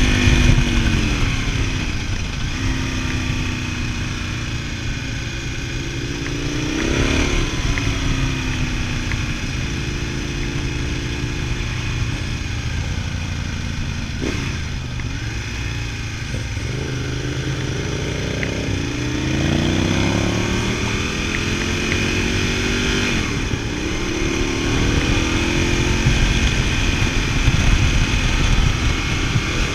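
Ducati Multistrada 1000DS's L-twin engine under way, its revs rising and falling several times with throttle and gear changes.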